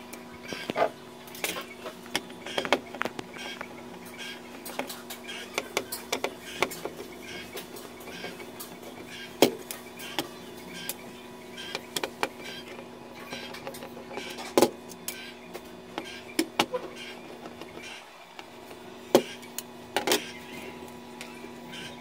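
Sharp clicks and taps of tools and parts being handled on a repair bench, scattered irregularly, over a steady electrical hum.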